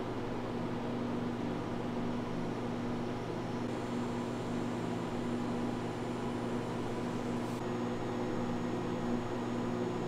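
Steady electric motor hum of a running appliance, with a few even tones held over a noisy whir and no change in pitch or level.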